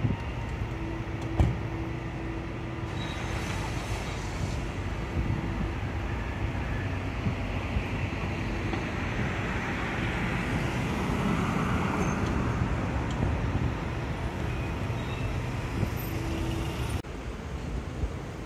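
Steady motor and traffic noise of a city street at a construction site, with a steady hum through the first half and a single sharp knock about a second and a half in. The noise swells for a couple of seconds around ten seconds in and drops off near the end.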